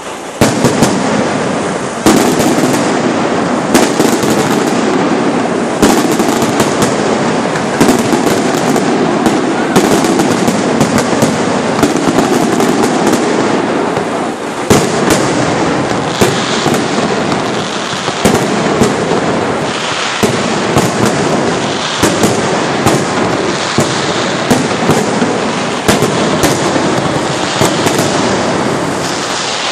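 Fireworks display: a dense, continuous crackling of bursts and bangs, with louder single reports standing out every second or two.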